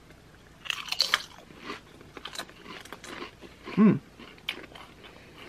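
Two people biting into and chewing Pringles potato crisps: a sharp crunch about a second in, then quieter scattered crunching as they chew.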